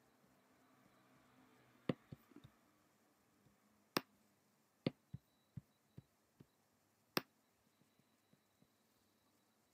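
Scattered clicks of a computer mouse, about ten in all at irregular intervals, the loudest about 2, 4 and 7 seconds in, over faint room hiss.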